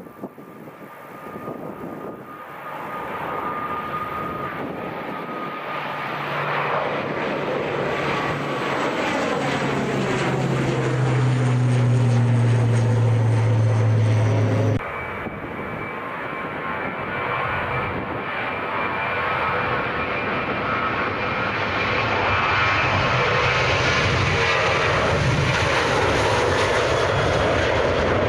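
Loganair ATR twin-turboprop climbing out after takeoff: steady propeller drone that grows louder and sweeps in pitch as it passes overhead. About halfway through it cuts abruptly to a Ryanair Boeing 737 jet climbing away after takeoff, a steady engine rumble with a high whine that slowly builds.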